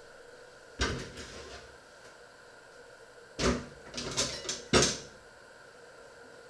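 A single sharp knock about a second in, then a quick run of four or five sharp knocks and clatters from hard objects in the kitchen, around three and a half to five seconds in.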